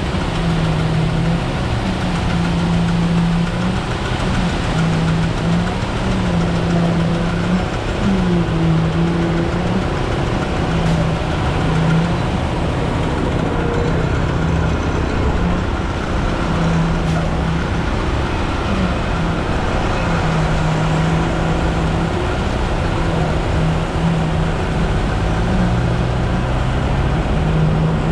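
Concrete mixer truck's diesel engine running steadily, its pitch stepping up and down between two nearby speeds every second or two, over a constant mechanical rumble.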